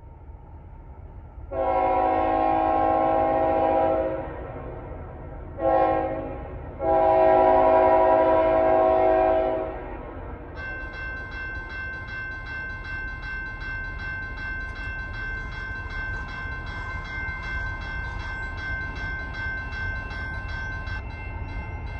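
Chime horn of CN 3233, a GE ET44AC freight locomotive, sounding a long blast, a short one and another long one over the low rumble of the train. About halfway through a bell starts ringing steadily and keeps going.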